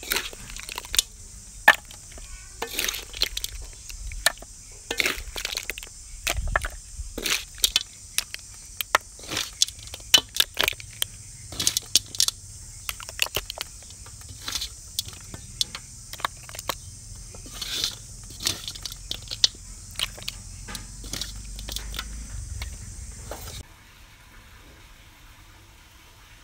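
Snail shells clicking and clattering against one another as the stir-fried snails are piled and handled, in many irregular sharp clicks. A steady high hiss sits behind them and cuts off suddenly near the end.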